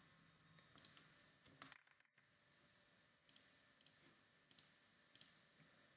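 Near silence, with a handful of faint computer-mouse clicks spread through it.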